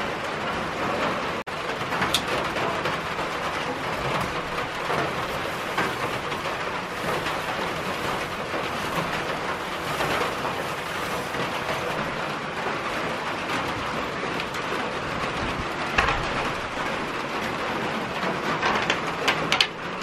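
Steady rain falling on a corrugated metal shed roof, heard from inside. A few short knocks near the end.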